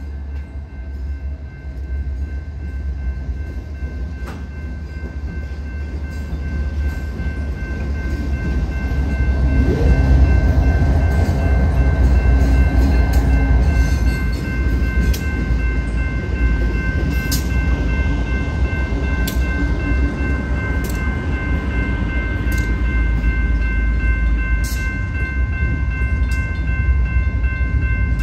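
BNSF freight train rolling through a grade crossing: deep locomotive and wheel rumble that swells about a third of the way in as the train draws level, with sharp clicks of wheels over the rails. A steady ringing from the crossing's warning bell runs underneath.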